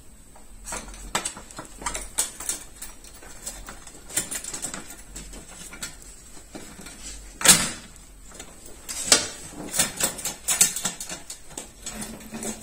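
Clicks and knocks of a soft-close toilet seat being handled and fitted onto its hinge mounts, with one sharp knock about seven and a half seconds in.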